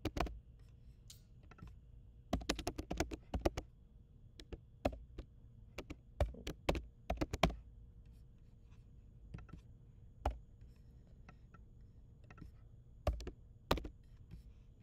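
Computer keyboard typing: scattered keystrokes in a few short bursts with pauses between.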